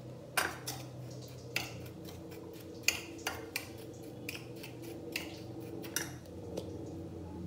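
Metal spoon clinking and scraping against a ceramic plate as sugar and cinnamon are stirred together, in irregular taps with a couple of sharper clinks.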